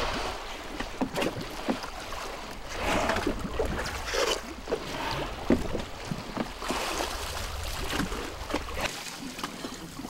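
Open-ocean water sloshing and splashing around a small boat, with wind on the microphone and a steady low rumble.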